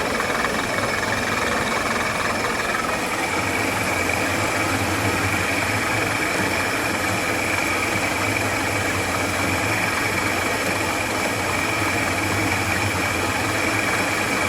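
B30 round-column vertical milling machine taking a cut, its table driven by the power feed set to 50%: a steady run of spindle and cutter noise with a constant high whine.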